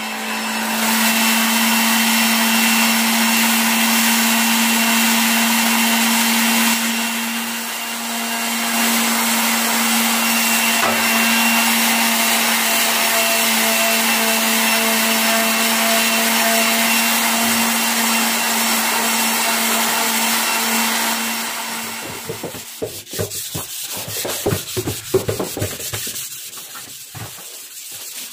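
Electric sander running steadily against body filler on a steel motorcycle fuel tank, a constant hum with a hiss of abrasion, dipping briefly about a quarter of the way through. Around three-quarters of the way through the motor stops and hand sanding takes over, with irregular rubbing strokes of sandpaper on the tank.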